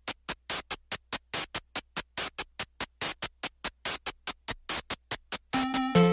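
Electronic background music: a steady drum-machine beat of short, sharp hits, about four a second, with a synthesizer melody coming in near the end.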